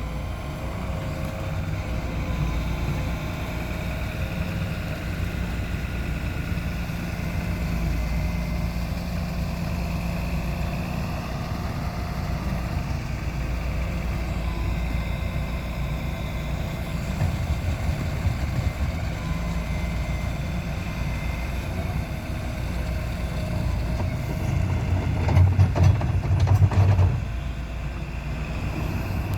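Diesel engine of heavy construction machinery running steadily, with a louder, lower stretch of about two seconds near the end.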